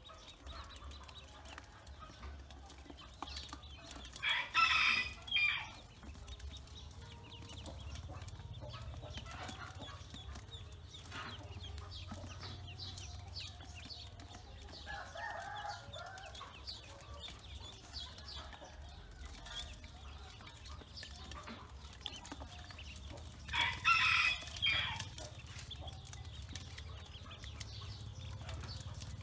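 A rooster crowing twice, about four seconds in and again near the end, each crow a drawn-out two-part call. Between the crows, Pekin ducklings feeding in a metal basin give quiet peeps and ticks.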